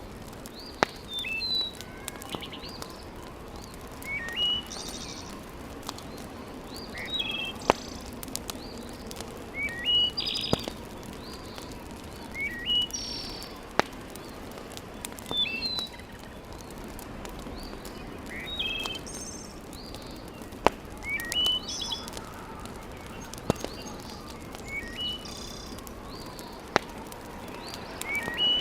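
Wood fire crackling in a fireplace, with a sharp pop every few seconds over a soft steady hiss. A bird repeats a short chirping song phrase every two to three seconds.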